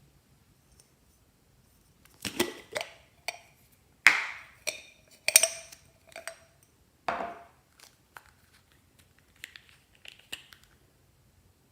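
A run of about a dozen sharp knocks and clacks of hard objects being handled, some with a brief ring, loudest around the middle.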